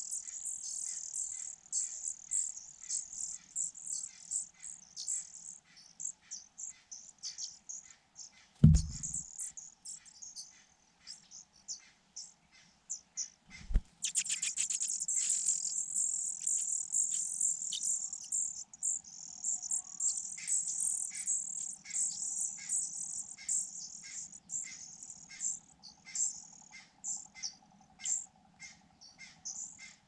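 Fujian niltava nestlings begging for food at the nest with dense, very high-pitched squeaking that pauses for a few seconds about a third of the way in, then resumes with a run of short, evenly repeated chirps. Two dull thumps, the louder about a third of the way in and a second about five seconds later.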